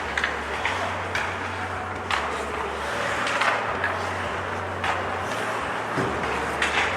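Ice hockey play in an arena: scattered sharp knocks and scrapes, from sticks, puck and skate blades on the ice, over a steady low arena hum.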